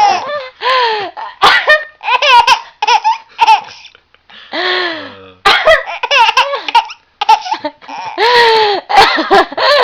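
Baby laughing in many short, high-pitched bursts at her mother's coughing, with one lower, rougher adult cough about halfway through.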